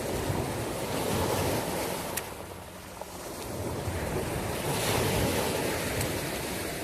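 Sea waves washing, with wind buffeting the microphone; the wash eases off about two and a half seconds in and builds up again.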